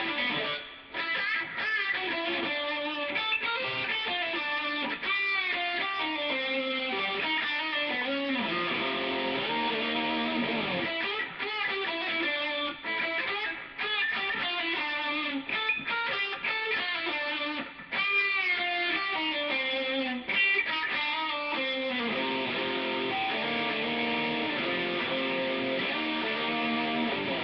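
Semi-hollow-body electric guitar played solo, a run of picked notes and chords with frequent string bends.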